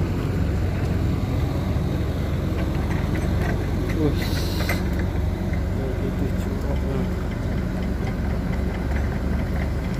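Sany SY135F excavator's diesel engine idling steadily, with a brief hiss about four seconds in.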